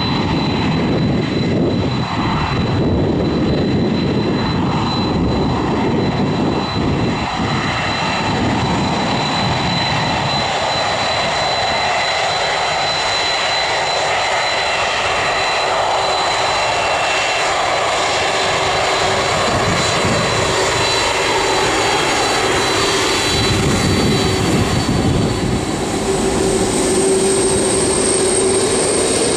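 Jet airliner engines running loud and steady, a rushing noise with a high whine over it. The low rumble falls away about a third of the way in, and new steady tones rise near the end as the aircraft moves.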